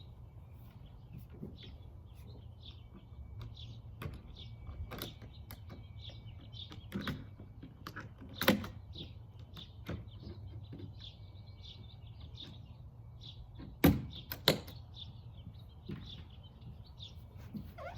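Scattered knocks and clicks from handling the plastic modular kayak and its hardware, the loudest about halfway through and two close together a little past three-quarters. Birds chirp over a steady low hum.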